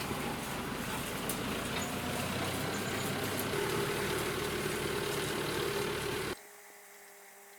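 An engine running steadily, which cuts off abruptly about six seconds in, leaving only a faint steady hum.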